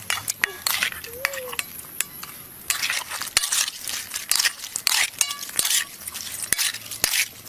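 Food being stirred in a pan: a utensil scrapes and clinks against the pan in many short, irregular strokes over a steady frying sizzle.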